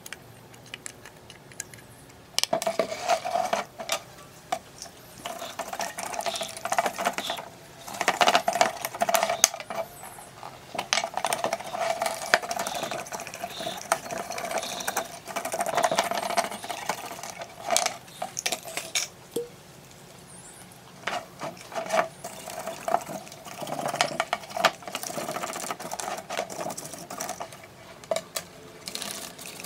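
A stiff brush scrubbing a printed circuit board, in rapid scratchy strokes that start about two seconds in and go on in stretches with short pauses.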